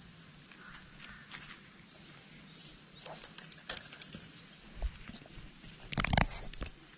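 Footsteps and rustling through leaf litter and brush, with scattered small crackles and one loud crunch about six seconds in.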